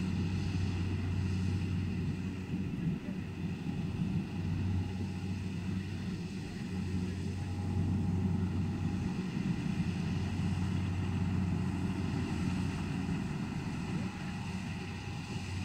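Rice combine harvester's diesel engine running steadily at work, a low drone.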